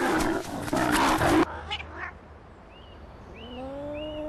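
Lions growling harshly while mating, cut off about a second and a half in. Near the end, a mating domestic cat starts a long, low, steady yowl.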